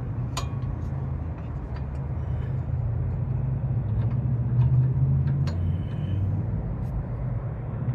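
Light clicks and taps of hand tools on a sway bar end link and its suspension mounts, about six over the few seconds, over a steady low hum.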